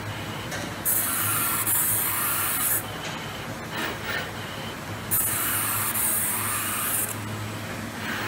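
CNC mirror-glass cutting machine running: a steady low hum with two loud hissing stretches of about two seconds each, about a second in and again about five seconds in.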